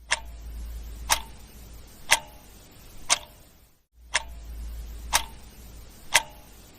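A clock ticking once a second, each tick sharp with a short ring, over a low steady hum. The ticking breaks off for a moment about four seconds in and then picks up again.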